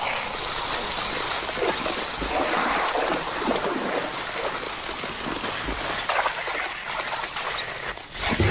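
Water splashing and churning irregularly as lions and a honey badger fight in the shallow water of a swamp.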